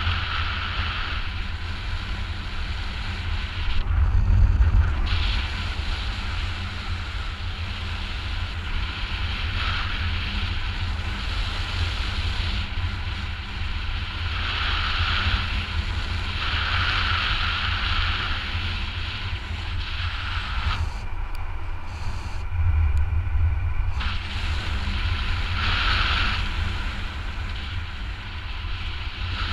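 Airflow buffeting a GoPro's microphone in paraglider flight: a steady low rumble with airy hiss that swells and eases every few seconds.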